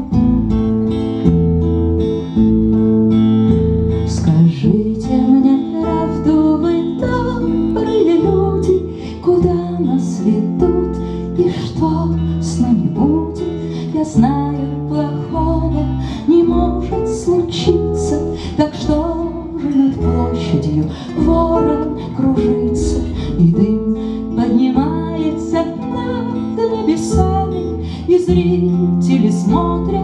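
Live instrumental introduction on guitars and upright double bass: a steel-string acoustic guitar strummed in chords, a second guitar playing bending melodic lead lines over it, and a plucked double bass line underneath.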